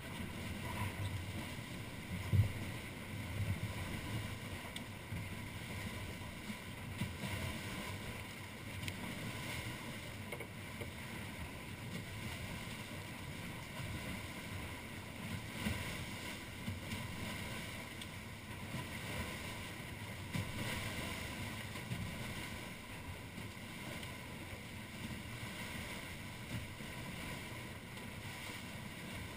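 Steady rush of wind and water around a Wharram Tiki 38 catamaran sailing fast through choppy sea, with wind buffeting the microphone in gusts. A single sharp knock about two seconds in.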